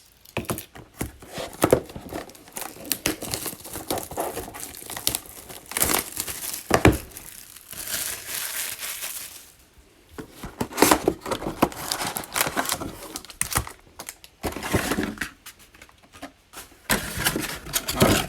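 Plastic shrink wrap on a sealed trading card box crinkling and tearing as it is pulled off by hand, in irregular crackles with a longer rip about eight seconds in.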